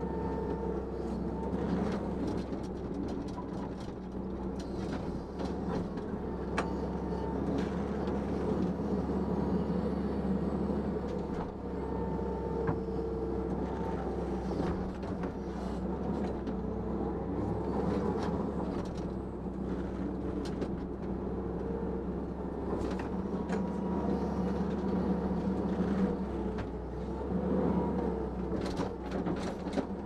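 Hitachi EX120-5 excavator's diesel engine running steadily under hydraulic load, its note swelling and easing as the boom and thumb work. Scattered sharp cracks and knocks come as peach tree limbs break and the tree is wrenched out.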